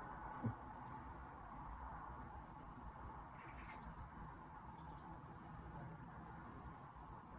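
Birds chirping outside in a few short, high calls, over a steady faint hum of room ambience picked up by a phone microphone. A soft knock comes about half a second in.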